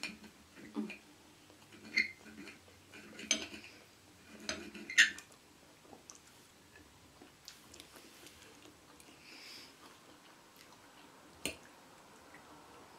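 Metal cutlery clinking and scraping on a plate as a knife and fork work through food: a run of sharp clicks over the first five seconds, the loudest about five seconds in, then one more near the end, with quiet chewing in between.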